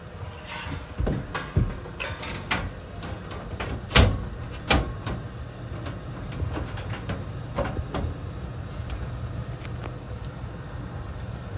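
Furnace running under a call for heat with a steady low hum, and a string of sharp knocks and clicks over it, the loudest about four seconds in.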